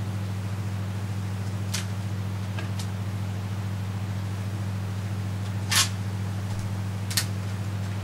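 Plastic bottom cover of a laptop being pressed back into place, giving four short sharp clicks as its clips snap in, the loudest about six seconds in, over a steady low hum.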